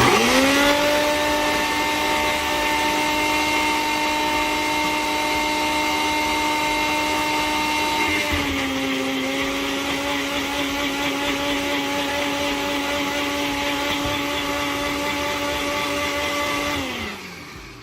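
Electric kitchen blender blending juice: the motor spins up with a rising whine, runs steadily for about seventeen seconds, dips slightly in pitch about halfway through as it works the load, then winds down with a falling whine near the end.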